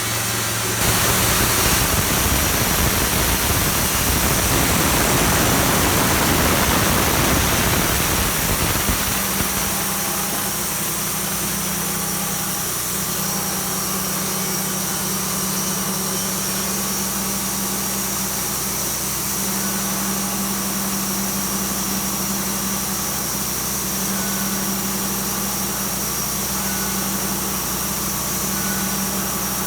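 A sawmill's petrol engine running with a loud rushing noise for the first eight seconds or so, then settling to a steady idle hum.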